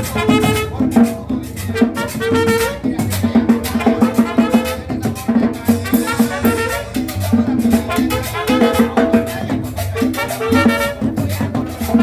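Tropical salsa-style dance music with brass and percussion over a steady beat.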